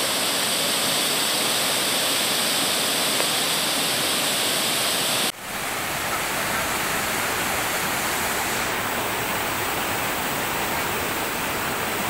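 Fast-flowing rocky stream rushing steadily. The sound cuts off for a moment about five seconds in and then goes on, a little quieter.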